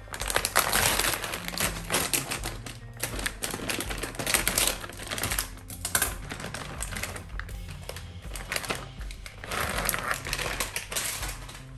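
Plastic mozzarella packaging crinkling and rustling as the bag is opened and the inner packs are pulled out, a dense run of crackles. Background music plays underneath.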